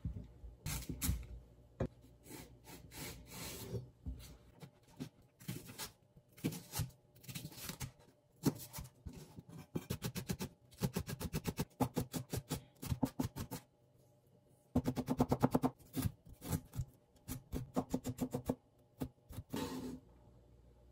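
Chef's knife chopping white spring onion on a plastic cutting board: runs of quick knife strokes knocking on the board, broken by short pauses.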